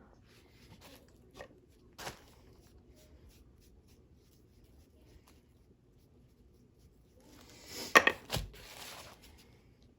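Quiet room with a few light clicks, then a short clatter of handled objects with two sharp knocks close together about eight seconds in.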